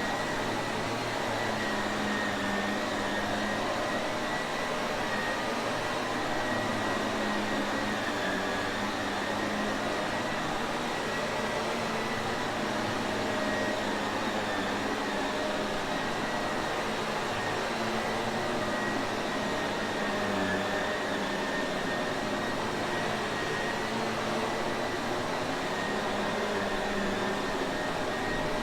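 Shark Navigator upright vacuum cleaner running steadily: an even rush of air with a constant high whine over a low hum.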